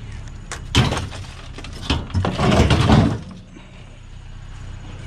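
Scrap metal being handled: a sharp clank about a second in, another just before two seconds, then about a second of loud clattering and scraping.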